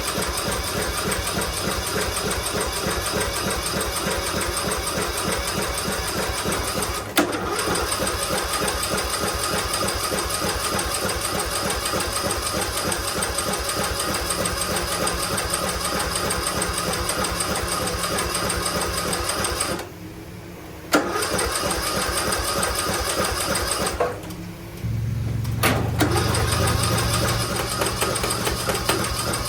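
Small lawn mower engine running steadily just after being started, following repair work on it. It drops out briefly twice, about two-thirds of the way through, and comes straight back each time.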